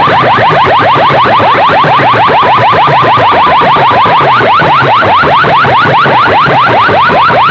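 Competition DJ speaker stack blasting a siren-like alarm effect at full volume: a fast, even run of short rising whoops, several a second, over a throbbing low bass.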